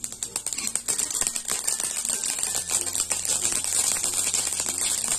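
Mustard seeds spluttering in hot sesame oil in a metal kadai: a dense, rapid crackle of small pops over a sizzle. The popping is the tempering stage, the sign that the oil is hot enough and the seeds are bursting.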